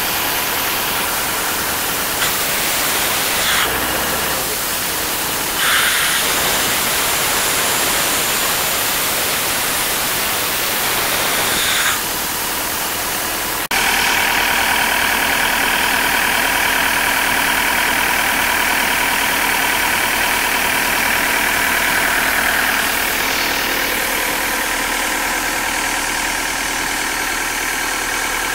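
Diesel engine of a 2005 Atlas Copco XAS97 portable air compressor running steadily. About halfway through the sound shifts abruptly to a slightly louder, even hum with a steady whine over it.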